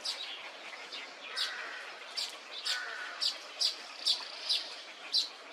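A bird calling a rapid series of short, sharp notes, each sweeping downward in pitch, about two a second, over a steady hiss of background sound.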